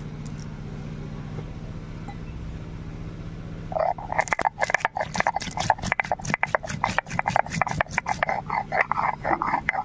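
Whole garam masala being ground on a shil-nora, a flat grinding stone with a stone roller: the roller scrapes back and forth over the slab in quick strokes, about three or four a second. The grinding starts about four seconds in, over a steady low hum.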